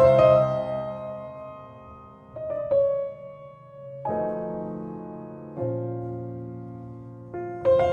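Background piano music: slow, sustained chords that ring and fade before the next is struck, with a quicker run of notes near the end.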